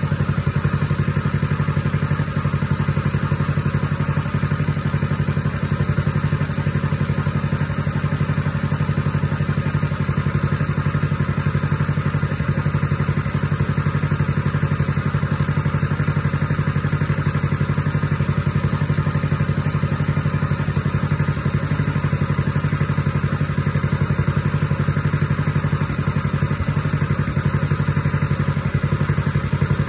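Small air-cooled engine of a walk-behind two-wheel tractor running steadily at idle, warming up after a cold start.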